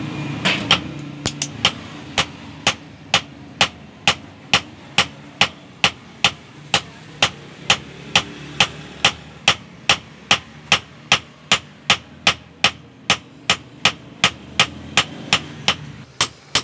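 Blacksmith's hand hammer striking a red-hot iron blade on an anvil, forging it into shape in a steady rhythm of about two blows a second, each blow a sharp metallic clang.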